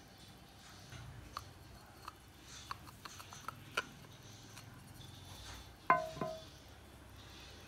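Light clicks and crinkling as a soft clay tray is peeled out of a clear scalloped mold dish. About six seconds in, two quick knocks with a brief ring as the hard mold dish is set down on the table.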